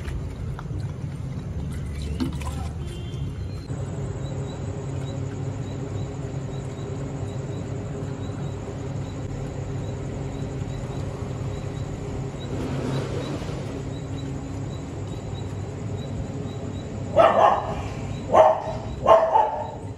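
A street dog barking several times in quick succession near the end, over a steady low hum.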